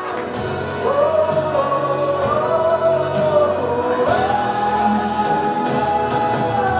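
Music with a singer holding long notes that slide from one pitch to the next.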